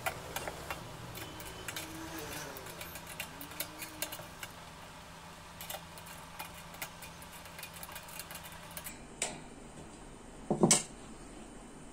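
Small metal clicks, taps and light clatter of a spanner and fan motor parts being handled on a table fan's grille, with a louder knock near the end.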